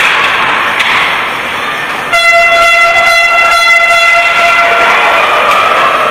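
Arena crowd noise, then about two seconds in an air horn sounds one long steady blast for nearly three seconds, a fainter tone trailing off and dropping in pitch near the end.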